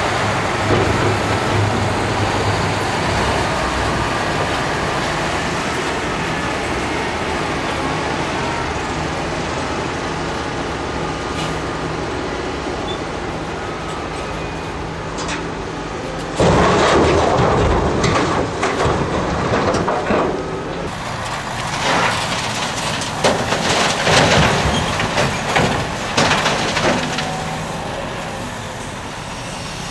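Diesel engine of a loaded Mercedes-Benz dump truck running steadily as it drives. From about halfway, loud rough scraping and clattering comes in long irregular stretches as a Liebherr R974B excavator's bucket works in broken rock.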